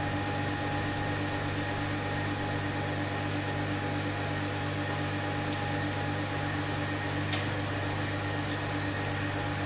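A steady machine hum made of several fixed tones, at an even level throughout. There are a few faint clicks from handling the plastic quadcopter frame.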